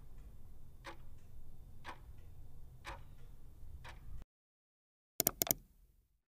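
Steady ticking, about one tick a second, over a low hum, stopping about four seconds in; a quick run of three sharp clicks follows near the end.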